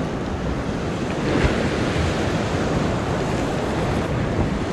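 Ocean surf churning against the rocks below, with wind buffeting the microphone; a wave surges up briefly about a second and a half in.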